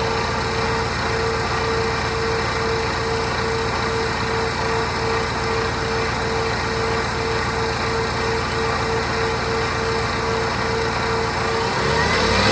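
Whipple-supercharged 6.2 L V8 of a 2013 Ford Raptor idling, with a steady, evenly pulsing hum at one pitch that is not the usual supercharger whine. The owner suspects worn bearings in the blower, at the front or at the rear rotors. Near the end the engine starts to rev up.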